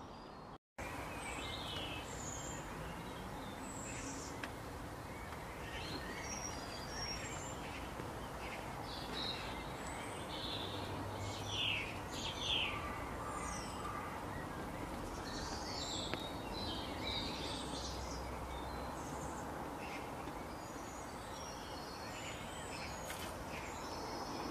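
Birds chirping and calling outdoors: many short high calls scattered over a steady background hiss, a few louder ones about halfway through.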